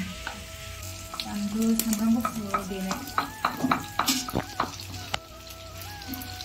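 Broiler chicken and bamboo shoot frying in a wok, with a wooden spatula stirring and scraping the pan in quick, irregular clicks over the sizzle.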